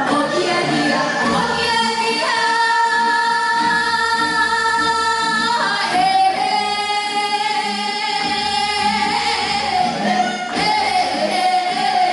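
Women singing a Gyeonggi minyo Korean folk song, holding long steady notes of a few seconds each, with a change of pitch about halfway through.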